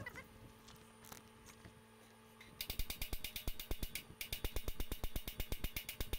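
Ratchet wrench worked in quick strokes: a fast run of even clicks, about seven a second, starting about two and a half seconds in, with a brief pause near four seconds.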